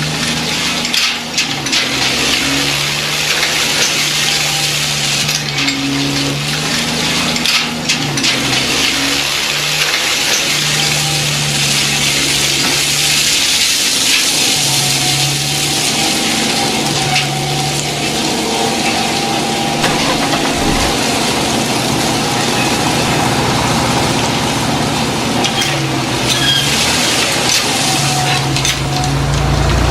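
Radio-controlled model truck and construction machines at work: small electric motors and gears humming in stop-start spurts over a steady gritty, scraping hiss.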